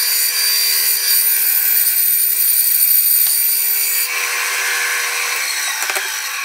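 Electric power saw running and cutting through wood, a steady motor whine with the sound of the blade in the wood, changing about four seconds in.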